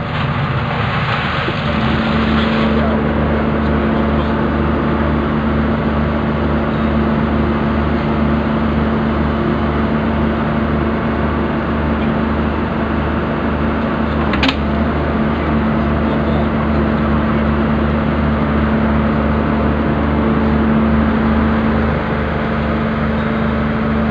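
Excavator engine running steadily: a low hum with an even pulse and a steady tone over it. A single sharp click about halfway through.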